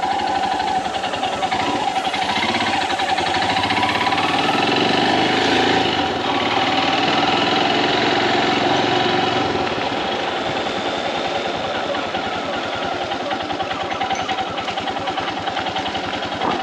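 Royal Enfield Himalayan BS VI single-cylinder engine running at idle, cold in the morning, making the weird noise the owner hears only on morning starts. It swells slightly for several seconds in the middle, then settles back to a steady idle.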